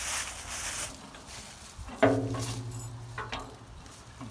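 A sharp metallic clank about two seconds in, heavy steel parts striking each other, with a ringing tone that fades over the next two seconds.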